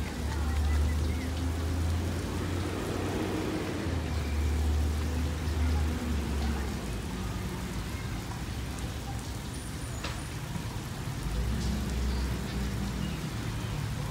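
Water from a park spray shower hissing and pattering steadily onto wet asphalt. A low rumble comes and goes.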